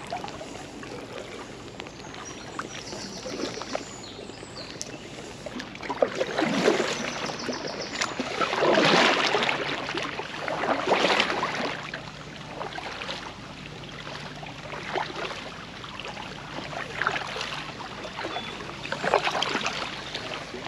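Double-bladed paddle strokes from an inflatable packraft in floodwater: water splashing and dripping off the blades about every two seconds.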